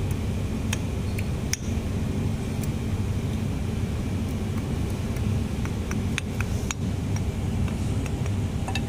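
Steady low mechanical rumble, with a few light metallic clicks from steel parts of a hydraulic motor's seal housing being handled with a hammer and rod.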